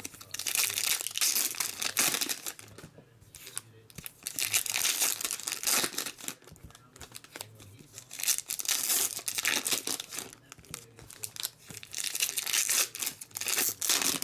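Foil wrappers of Topps trading card packs crinkling and tearing as packs are opened by hand. The rustle comes and goes every few seconds.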